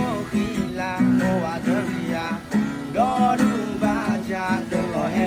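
Background music: a song with strummed acoustic guitar and a sung melody line.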